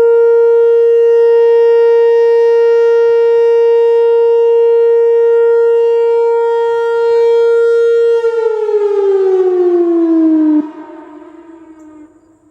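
Whelen Vortex R4 outdoor warning siren ending a short alert test: a loud, steady single-pitched tone holds for about eight seconds, then winds down. Its pitch falls over a couple of seconds before the sound drops away sharply and trails off to a faint fade near the end.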